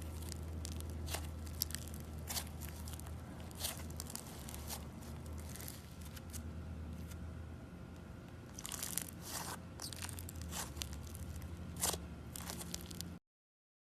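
Slime being squeezed and poked by hand, making irregular crackles and pops over a steady low hum.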